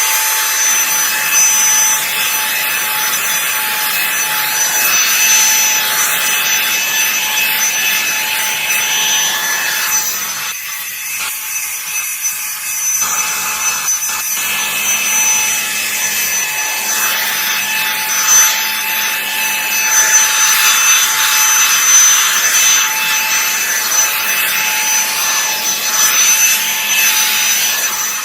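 Revlon One-Step hair dryer brush running, with a steady high motor whine over the rush of its airflow. Its barrel brush makes an uneven rubbing sound as it is rolled and pulled through hair.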